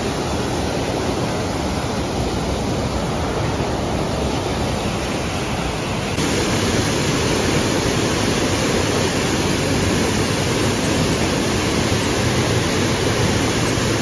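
Steady rushing of a cascade at Iguazú Falls, water plunging over rock, getting louder about six seconds in.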